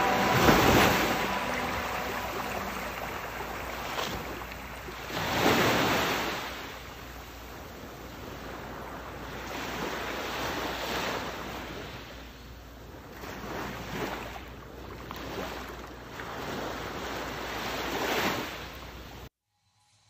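Small sea waves washing onto a beach, swelling and ebbing every few seconds over a steady hiss of moving water. The sound cuts off suddenly near the end.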